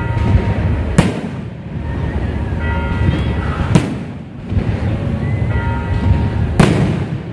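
Aerial firework shells bursting: three sharp bangs about three seconds apart, the last the loudest, over a continuous low rumble.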